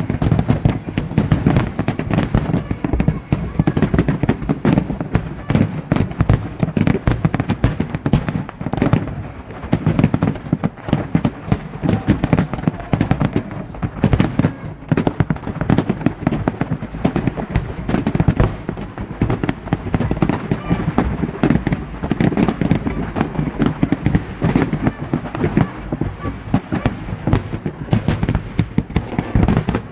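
Large fireworks display: a continuous, rapid barrage of shells bursting, with overlapping bangs and crackling.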